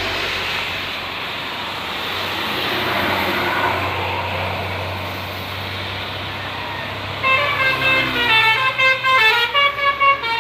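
Vehicle engine and road noise, then about seven seconds in a multi-tone telolet bus horn starts playing a quick melody of short stepping notes.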